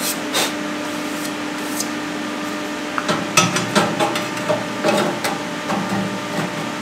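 Light metallic clicks and knocks as a stainless steel acceleration plate is handled and set in place on a stainless steel intake box, with a steady hum underneath. Most of the knocks come in a cluster over the second half.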